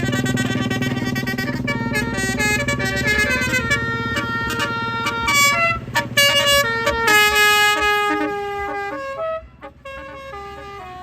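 A bus's Basuri telolet horn, a multi-note musical air horn, playing a melody in quick stepped notes over the low hum of the bus engine. The horn cuts out about nine and a half seconds in, and a few quieter notes follow.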